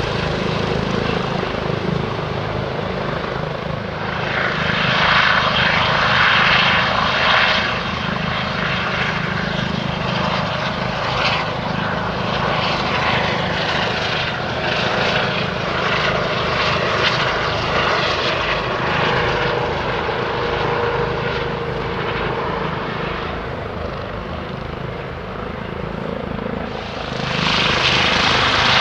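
Twin-turbine police helicopter running in flight, a steady turbine whine and rotor sound as it climbs away after takeoff. About 27 seconds in, a Bundespolizei Eurocopter EC135 hovering close by takes over, louder.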